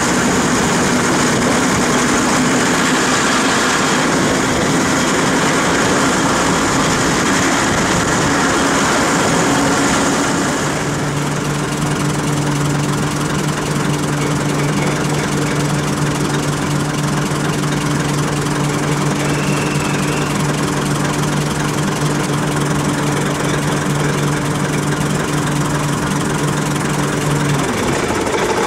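Heritage diesel multiple unit on the move, heard from an open carriage window: diesel engine running, with rail and wind noise. About ten seconds in, the noise eases and a steady engine hum holds at one pitch until just before the end.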